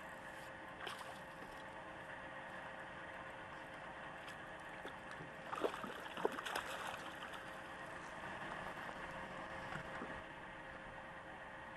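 A few quick water splashes about six seconds in, as a hooked trout breaks the surface, over a steady hiss and hum.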